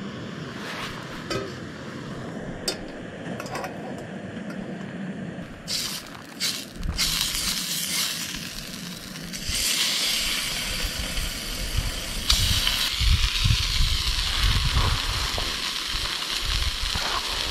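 A few clicks and knocks of cooking gear being handled, then from about seven seconds in a steady sizzling hiss: beef steak frying in a pan on a camp stove.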